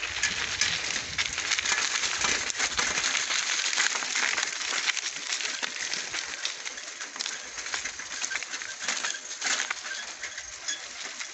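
Footsteps crunching through dry leaf litter, a dense, irregular crackle of small clicks.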